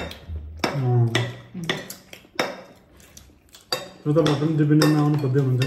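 A metal spoon clinking against a plate a few times, with a man talking around a second in and again from about four seconds.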